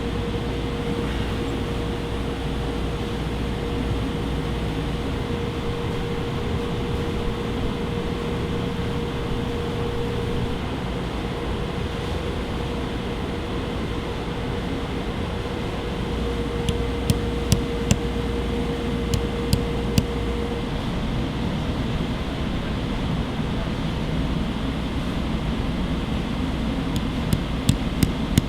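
Steady fan or air-conditioning hum with a held tone that stops about two-thirds of the way through. Two short groups of sharp, light clicks come late on.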